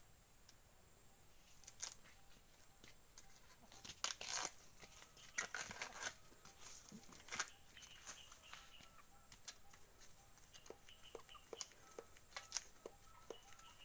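Bracts of a banana blossom being peeled off by hand: quiet, irregular snapping, tearing and crackling of the stiff leaves.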